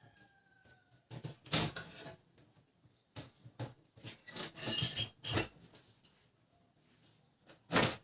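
Hard printer parts being handled and fitted back together by hand: irregular clattering, scraping and clicking in four short bouts, the longest about four to five and a half seconds in.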